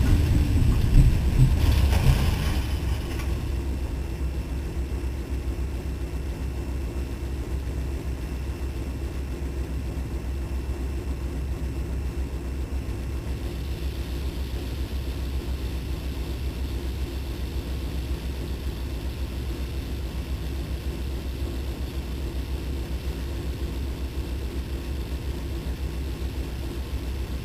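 Locomotive diesel engine idling with a steady low hum, heard from inside the cab. A loud rush of storm wind dies away over the first two or three seconds.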